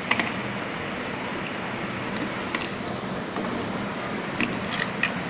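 Scattered sharp clicks and taps of a screwdriver and a plastic clamp-meter battery cover being unscrewed and lifted off, with several clicks close together near the end, over a steady hiss.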